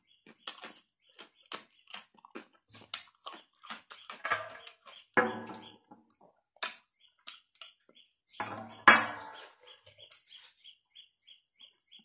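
Close-miked eating: wet chewing and lip smacking with crunchy bites of cucumber, the two loudest bites about five and nine seconds in.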